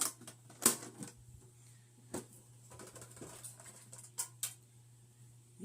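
Trading cards and packs being handled: scattered sharp taps and rustles, the loudest about two-thirds of a second in, with a few more about two and four seconds in.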